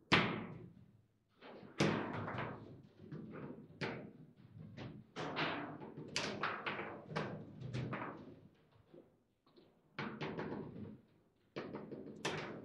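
Table football rally: the ball struck by the rod-mounted figures and knocking against the table walls, with rods clacking, an irregular run of sharp knocks and thuds. The hardest hits come at the very start and about two seconds in.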